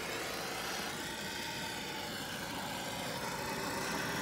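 Handheld propane torch burning on high: a steady hiss of the flame.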